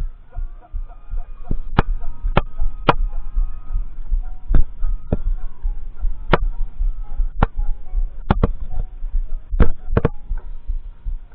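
About a dozen sharp, irregularly spaced taps close to a microphone on a marching quad drum set, over a constant low rumble of wind and handling noise, with faint held tones in the background.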